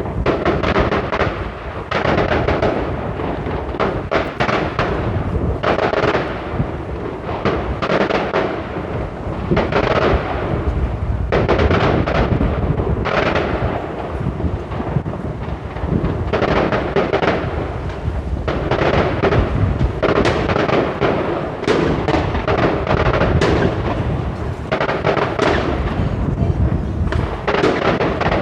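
New Year's Eve fireworks and firecrackers going off continuously: dense, overlapping bangs and crackling with no break.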